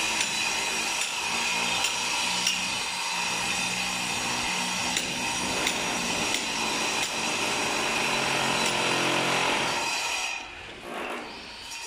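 Power tool running steadily with scattered sharp knocks, dropping away about ten seconds in.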